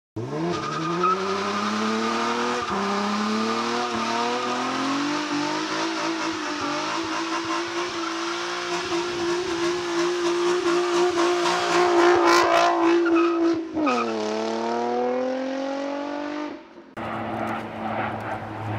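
Infiniti G35 coupe's 3.5-litre V6 revved hard through a burnout, with tyre squeal. The engine note climbs steeply, is held at high revs for several seconds, dips and climbs again, then cuts off suddenly near the end, leaving faint wind noise.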